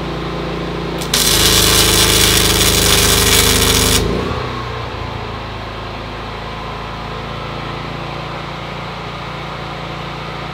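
MIG welding arc from a Miller Multimatic 220 burning wire: a loud, steady crackling hiss for about three seconds that cuts off suddenly as the overloaded Predator 9500 inverter generator trips its 30 amp breaker. The generator engine runs steadily underneath and eases once the load drops.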